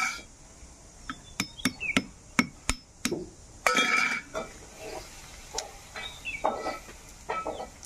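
Roasted cashew seeds being cracked open with a metal blowpipe struck against a wooden block: a quick run of about seven sharp knocks in the first three seconds, then softer clicks and scraping as the cracked shells are picked apart by hand.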